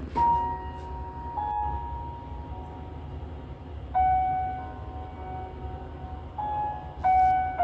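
Slow background music of long held notes, each sustained for one to three seconds before moving to the next, over a steady low hum.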